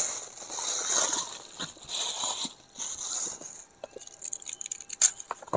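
Thin plastic bag rustling and crinkling as it is handled, then, from near the middle on, a run of small sharp clicks and scrapes of a knife peeling a garlic clove.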